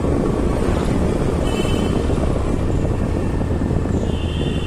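Wind buffeting the microphone and engine noise while riding along a street on a two-wheeler. Two short high beeps cut through, about a second and a half in and again near the end.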